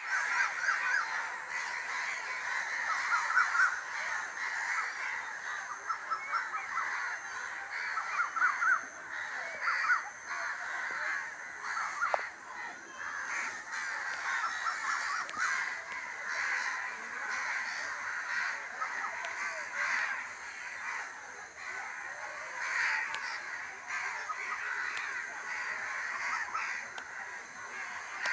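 A large flock of crows cawing continuously, many calls overlapping into a dense, unbroken din.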